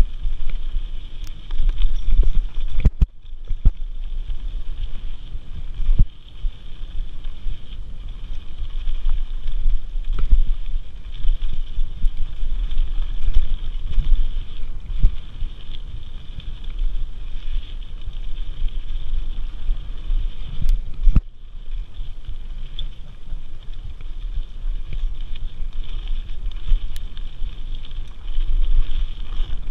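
Mountain bike rolling fast down a dirt singletrack: wind buffeting the bike-mounted camera's microphone over a low rumble of tyres and frame, with sharp knocks from bumps, two hard jolts about three seconds in and again near twenty-one seconds.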